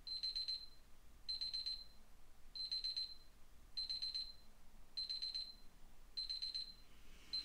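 Mobile phone alarm going off: a high electronic beeping, each ring a quick run of beeps, repeating about every 1.2 seconds. It cuts off near the end.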